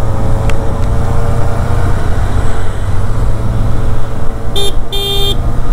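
Kawasaki Ninja ZX-4RR's 399 cc inline-four running steadily in city traffic under a constant low rumble. A vehicle horn toots twice about four and a half seconds in: a short blip, then a slightly longer blast.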